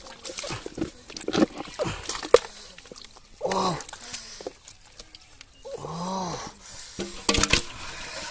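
Hands and a plastic cup sloshing and scooping muddy water out of a hole, with wet splashes and squelches. Two short vocal sounds, each a single drawn-out call, come a little before and a little after the middle.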